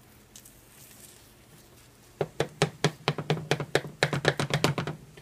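Slotted plastic spatula chopping scrambled eggs rapidly in a frying pan. After a couple of seconds of faint sizzling, a fast run of sharp knocks, about six a second, as the spatula hits the pan and the pan shakes on the electric stove.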